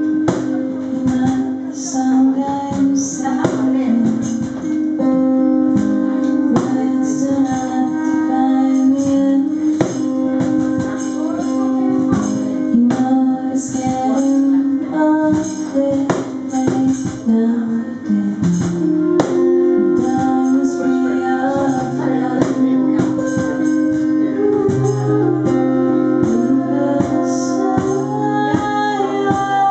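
Acoustic guitar strummed in a steady rhythm as a song starts, with a woman singing over it.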